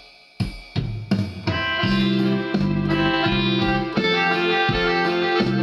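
Yamaha PSR-463 arranger keyboard playing one of its built-in styles: a few separate drum hits, then from about a second and a half in a full accompaniment with held chords over a steady drum beat.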